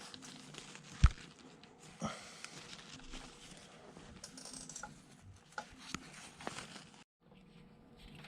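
Handling noise from work on a wooden speargun repair: scattered light clicks and taps, with one sharper knock about a second in. The sound cuts out completely for a moment near the end.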